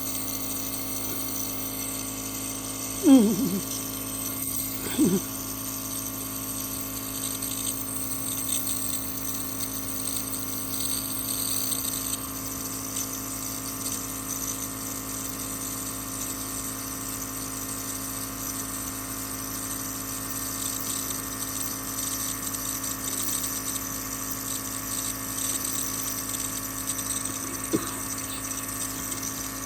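A steady electric motor hum, made of several constant tones, running without change. Two short sounds that drop in pitch break through about three and five seconds in.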